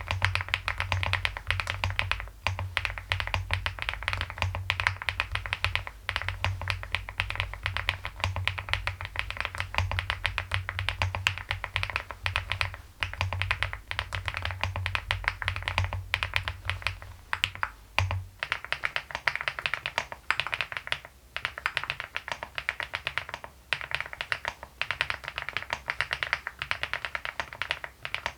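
Continuous fast typing on a Leobog Hi75 full-aluminium mechanical keyboard with Hyacinth V2U switches and MOA keycaps: a dense, steady stream of keystroke clacks with brief pauses, the uploader's 'pebbles rolling' sound.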